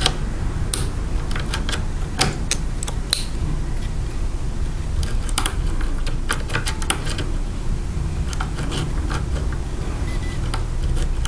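Irregular light metallic clicks and scrapes as shim steel and a key blank are worked into a Yale pin-tumbler lock cylinder to shim it open. A steady low hum runs underneath.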